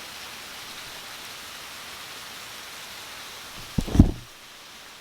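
Heavy rain falling in a steady hiss. About four seconds in there is one loud, low thump, after which the rain sounds duller and quieter.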